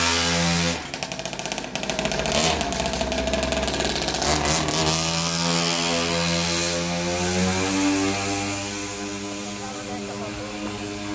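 Small two-stroke engine running and revving: a steady note that drops off about a second in, then the pitch climbs and falls again before the sound fades toward the end.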